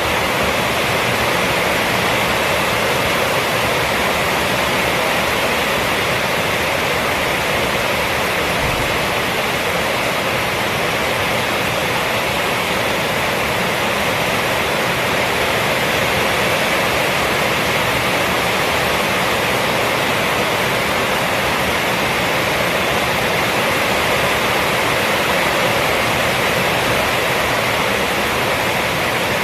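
Rainstorm falling on a roof: a dense, steady hiss of rain that holds even throughout.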